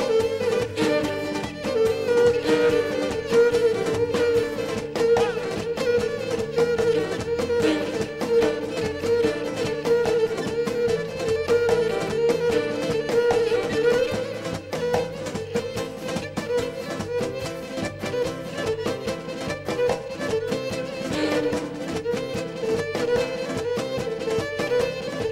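Cretan lyra playing a fast instrumental folk dance tune with band accompaniment over a steady beat.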